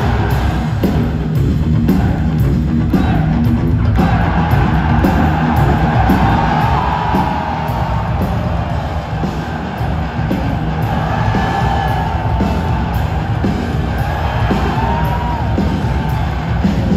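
Live hard rock band playing at full volume: distorted electric guitars, bass and drums, with long held, gliding vocal lines over them, heard through a phone's microphone in a large hall with the crowd shouting along.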